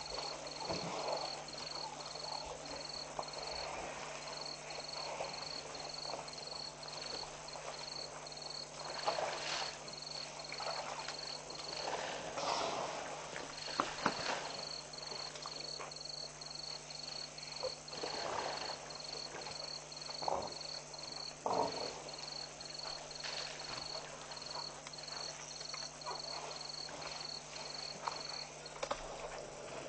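African elephant herd at a waterhole: scattered short, sharp sounds from the jostling elephants, the loudest a pair of quick bursts about halfway through. Under them, an insect chirps in an even high pulse about twice a second, over a steady low electrical hum.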